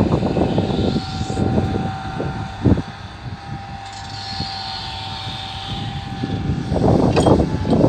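Komatsu PC200 excavator's diesel engine and hydraulics running under work, with a steady whine over the engine's rumble. There is a single sharp clunk about two and a half seconds in, and the sound grows rougher and louder near the end.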